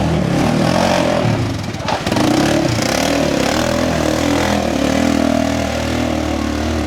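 A 4x4 ATV engine running and revving, with a short drop in level just before two seconds in, then running steadily.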